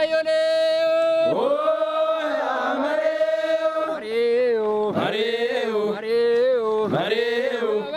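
Men chanting a traditional Oromo song together, in short phrases with long held notes.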